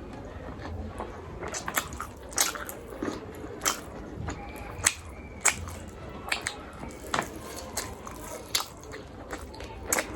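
Close-miked chewing of a mouthful of rice and chicken: sharp, wet mouth clicks and smacks coming irregularly, about one or two a second.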